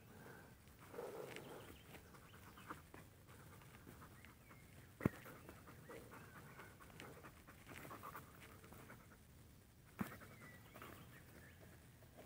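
Faint sounds of a dog panting as it mouths a person's arm in play, with two sharp clicks, about five and ten seconds in.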